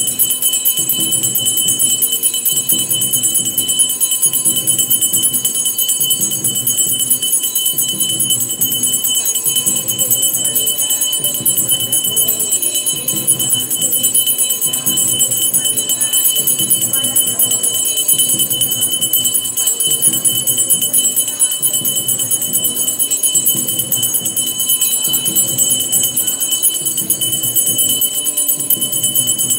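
Temple bells ringing without pause over a steady, even drum beat of about one and a half beats a second, as at an arati.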